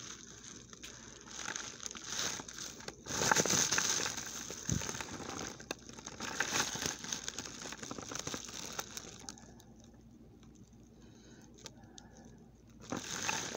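Plastic packaging crinkling and rustling in irregular bursts as a candle is handled on it, loudest about three seconds in and easing off for a few seconds near the end.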